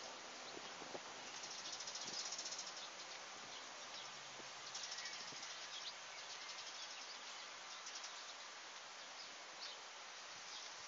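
Faint open-field ambience: a steady high hiss with insects chirring in the grass.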